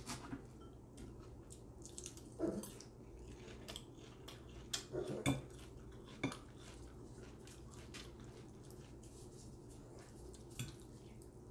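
Metal fork clinking and scraping against a glass baking dish as spaghetti is twirled: a few sharp clinks spread out over quiet stretches.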